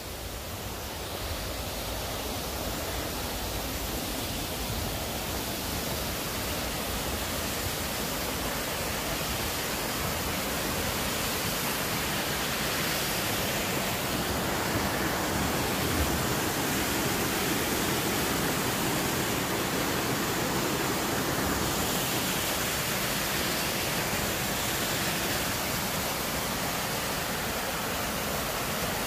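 Creek water rushing over rocks, a steady hiss that grows louder over the first dozen seconds and then holds.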